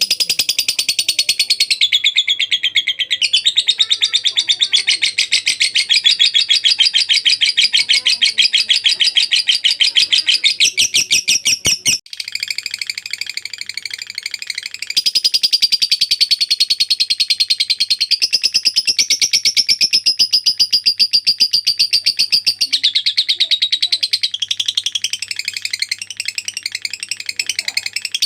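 Lovebird chattering in a long, unbroken 'ngekek': a rapid, continuous trill of high, shrill notes that pauses briefly about twelve seconds in and then carries on.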